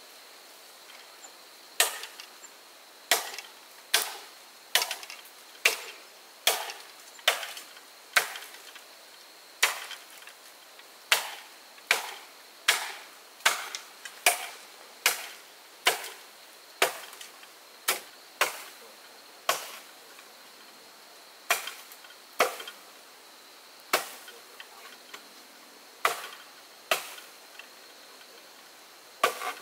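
Wood being chopped with a blade: a long series of sharp blows, a little faster than one a second, starting about two seconds in, with brief pauses between runs of strokes.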